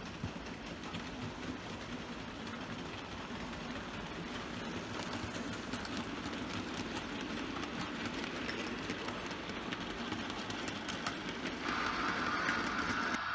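A model goods train rolling past: the wheels click over the rail joints and the wagons rattle over a steady motor whir, slowly growing louder as the train draws near. Near the end a steady higher hiss takes over.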